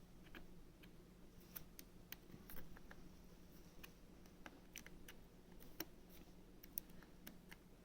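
Faint, irregular small clicks and ticks from a new M.2 SATA SSD being handled at an open laptop, over a faint steady low hum.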